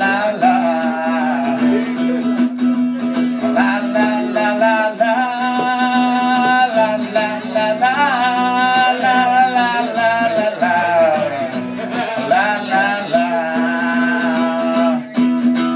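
An acoustic guitar strummed under a singing voice that holds long, drawn-out notes, playing out the end of a live comic song.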